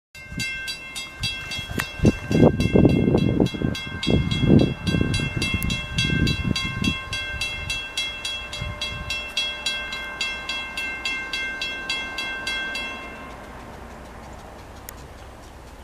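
Railroad grade-crossing warning bell ringing with rapid, evenly spaced strikes as the crossing gates lower, stopping about thirteen seconds in. Irregular low rumbles are loudest in the first several seconds.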